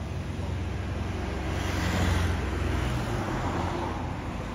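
Road traffic: a vehicle passes by, swelling to its loudest about two seconds in and then fading, over a steady low rumble.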